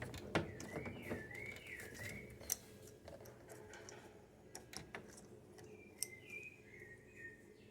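Faint bird calls, a wavering whistle-like warble heard twice, once near the start and again more faintly near the end, over a few light scattered clicks and taps.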